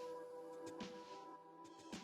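Soft background music with held notes fading away.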